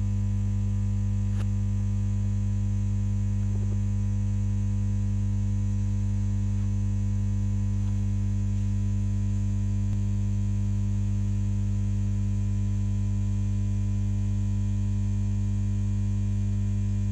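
Steady electrical mains hum, strongest low around 100 Hz with a ladder of fainter overtones above it, unchanging throughout.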